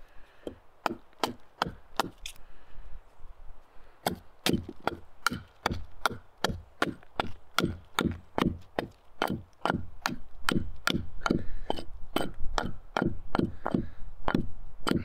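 Small hatchet with a 0.6 kg head (Hultafors Agdor) chopping into a stick of wood stood upright on a log: a steady run of short, sharp wooden knocks, about three a second, a little sparser in the first few seconds.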